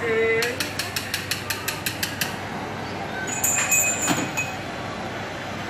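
Handheld butane blowtorch being worked: a quick, even run of about a dozen sharp mechanical clicks, like a ratchet, then a single knock about four seconds in.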